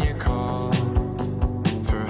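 Background music: a band song with guitar and a steady drum beat.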